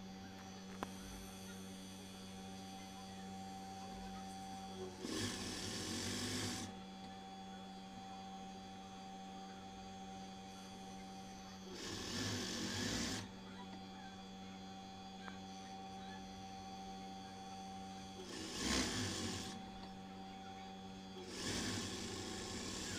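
Juki industrial sewing machine: a steady motor hum, with four short runs of stitching, each about a second long and several seconds apart, as the side seam of a knit fabric is sewn.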